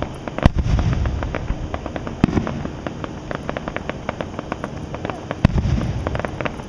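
Aerial fireworks shells bursting overhead: three deep booms, about half a second in, a little after two seconds and about five and a half seconds in, each followed by a low rumble, with many small crackling pops between them.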